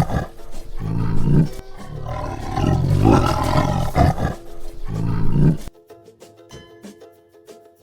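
Tiger roaring, several long, deep roars one after another, stopping about three-quarters of the way in; faint background music remains after.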